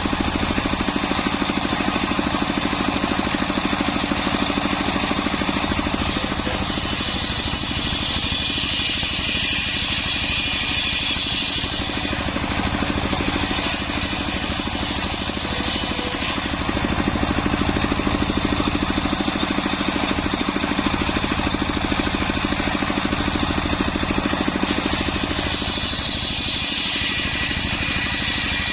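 Homemade circular saw rig running steadily, its blade cutting sengon wood. A higher, hissing cutting sound rises over the machine's running three times, as the blade passes through the timber.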